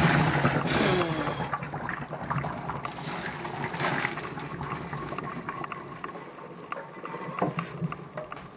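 Hot pasta cooking water poured from a pot through a wire mesh strainer into a stainless steel sink: a splashing gush, loudest at the start, fading to a trickle and drips. A few light clicks near the end.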